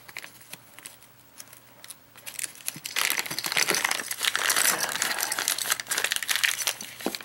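Packaging crinkling and rustling as hands rummage through a parcel, with a few small clicks at first and then about four seconds of steady crackling from about three seconds in.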